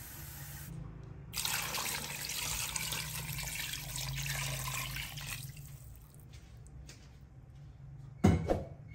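Water pouring in a steady stream into a large stockpot full of chicken bones, starting about a second and a half in and stopping after about four seconds. Near the end a brief loud low thud.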